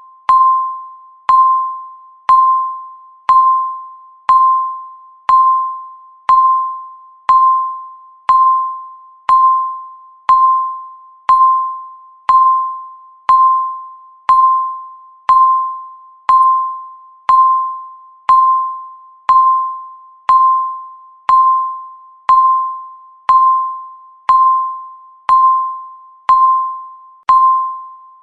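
Countdown timer beeping once every second: a high electronic beep that starts sharply and fades away before the next one.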